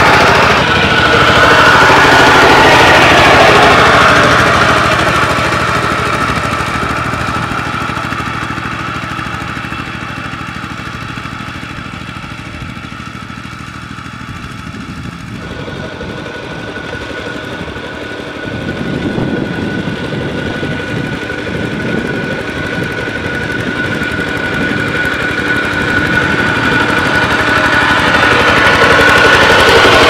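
Two-wheel walking tractor's engine running steadily as it pulls a plough through the soil. It fades as the tractor moves away, then grows loud again near the end as the tractor comes close.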